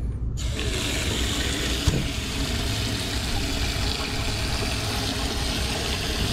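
Sink faucet turned on about a third of a second in, then a steady stream of tap water pouring onto a gutted fish and splashing in the sink basin, with a single knock about two seconds in. A steady low engine hum runs underneath.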